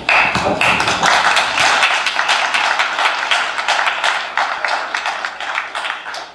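Audience applauding, a dense mass of claps that starts suddenly and eases off near the end.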